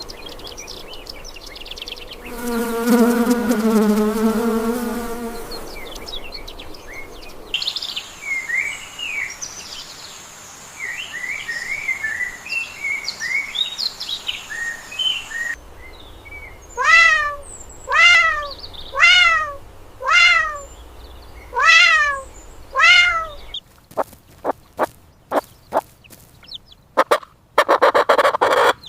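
A string of different animal calls, one after another. First comes one wavering pitched call. Then bird-like chirps over a thin high steady tone, then six falling calls about a second apart, and finally a run of rapid clicks and a short buzz.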